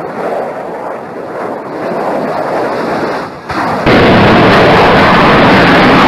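A rushing, noisy amateur recording, then about four seconds in a fighter jet crashing onto a runway: a sudden, very loud, distorted roar that holds steady as the burning jet slides along the ground.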